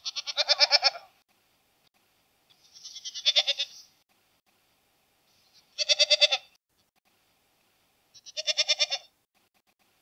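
Goat bleating four times: each bleat is about a second long with a rapid trembling quaver, separated by short silences.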